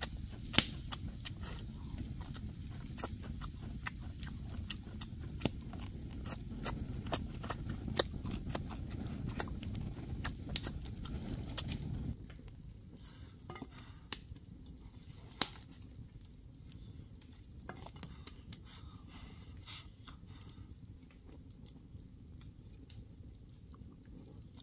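Chewing and crunching with scattered small clicks of utensils against a dish, as cooked bamboo shoots are eaten. A low rumble underneath cuts off about halfway through.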